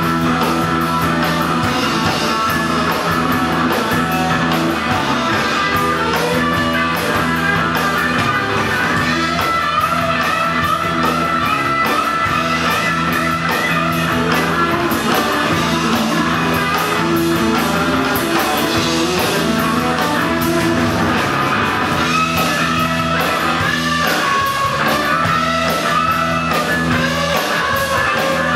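Live rock band playing an instrumental passage led by electric guitars, with a wavering, bending lead guitar line over steady bass notes and drums.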